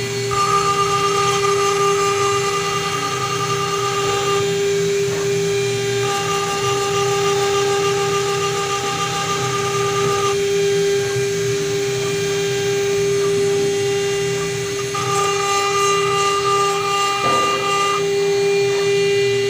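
CNC router spindle running with a steady whine while its engraving bit cuts into a brass plate. A second, higher tone comes and goes in stretches of a few seconds, dropping out about 4 s in, again about 10 s in, and near the end.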